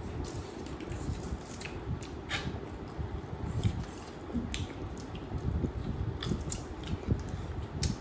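Eating sounds close to the microphone: wet chewing and lip smacking on duck meat, with small sharp clicks at irregular intervals.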